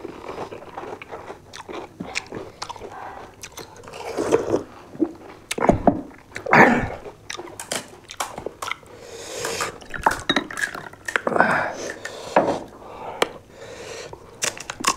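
Two people crunching and chewing pani puri, the crisp hollow fried shells cracking as they are bitten, in irregular crackles with a few louder bites.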